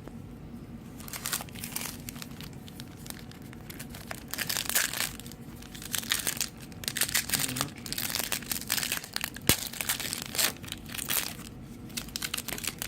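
Foil trading-card pack wrappers crinkling and rustling in irregular bursts as they are handled and opened.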